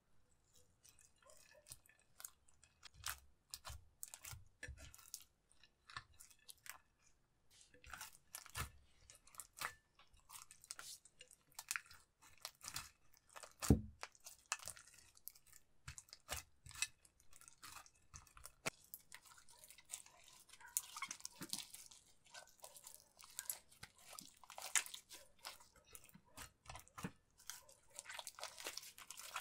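Clear slime with crushed eyeshadow being kneaded and squeezed by hand in a glass dish: a long run of small wet clicks, pops and crackles. There is a louder thump about 14 seconds in, and the crackling grows denser in the last third as the slime is stretched and folded.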